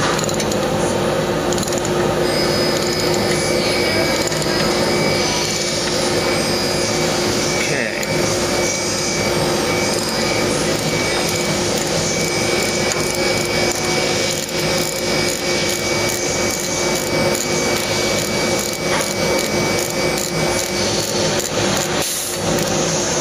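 Steady rasping and scraping of a threaded steel insert being turned by hand with a tap driver into the oil pressure switch hole of a magnesium air-cooled VW engine case, over a constant shop hum.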